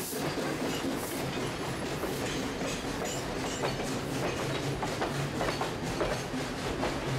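Tender and passenger coaches of a steam excursion train rolling past at close range, the wheels clicking irregularly over the rail joints above a steady rumble.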